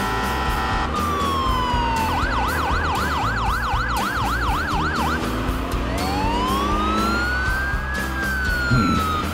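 Cartoon ambulance siren over background music: a slow falling tone, then a fast yelping wail of about four rises and falls a second for some three seconds, then a slow wail that rises and falls back.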